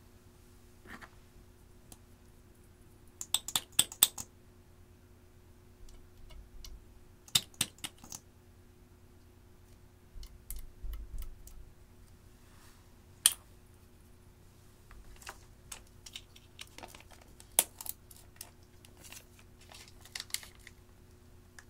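Sharp plastic clicks and taps from makeup packaging being opened and handled: caps coming off lip-product tubes and small containers. The clicks come in several quick clusters, with a few soft dull thumps between.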